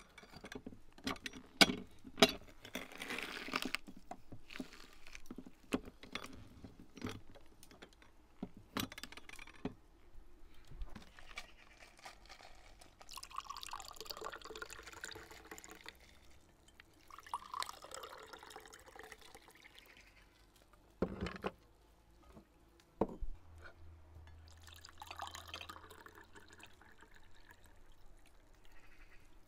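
Pomegranates crushed in a metal lever hand press, with clicks and knocks of the press during the first several seconds. Fresh pomegranate juice is then poured from the press cup into cut-glass tumblers in three spells, with a couple of knocks between them.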